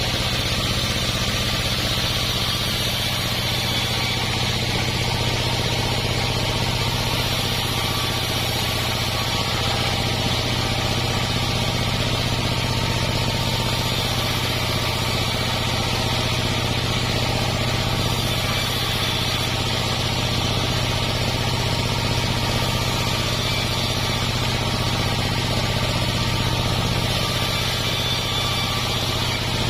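Homemade sawmill's engine running steadily at an even speed.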